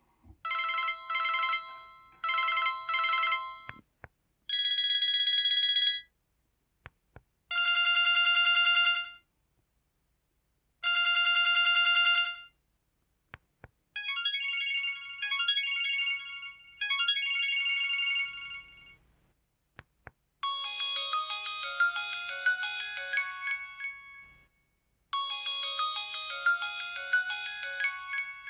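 Built-in ringtones of an LG LV7400 mobile phone, several different electronic ring patterns played one after another with short pauses between them. It opens with two paired trilling rings, then three single long trilled rings and a group of three warbling rings, and ends with a quick run of notes played twice.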